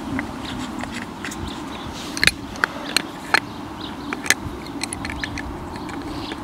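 A handful of sharp clicks and light scrapes from an adjustable spanner and a cable gland being handled and fitted together on armoured cable, most of them bunched between about two and four and a half seconds in.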